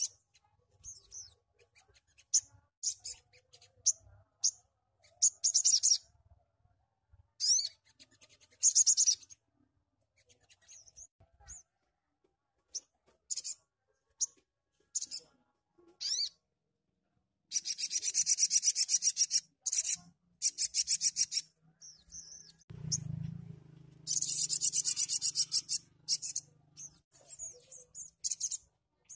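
Brown-throated sunbird (sogok ontong) singing in short, very high-pitched bursts of fast trills and chips, broken by brief gaps. The two longest trills last about two seconds each, one about two-thirds of the way in and one shortly after. A faint low hum comes in under the second of them.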